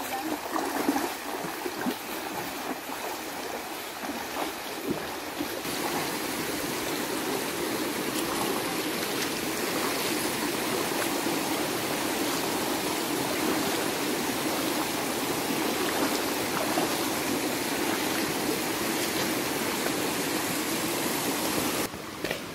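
Shallow, rocky river running fast over stones: a steady rush of water, dropping suddenly to a quieter rush just before the end.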